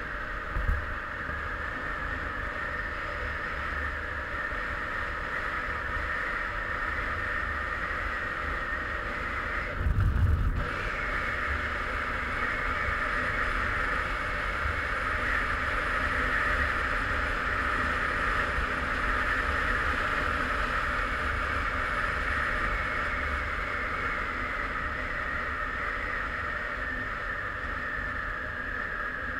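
Derbi Senda Xtreme 50's 50 cc two-stroke engine running at a steady cruising speed, heard muffled under wind and road noise. About ten seconds in there is a brief, louder low rumble.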